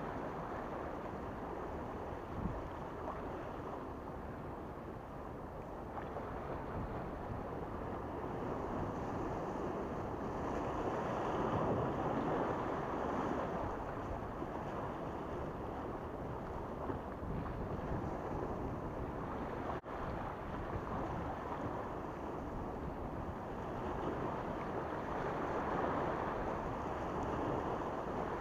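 Sea waves washing against the rocks of a breakwater, a steady wash that swells louder twice.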